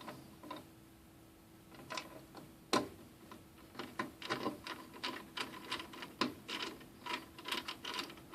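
Screwdriver driving motherboard mounting screws into a computer case: a run of small metallic clicks and ticks, few at first, then about two or three a second, with one louder click about three seconds in.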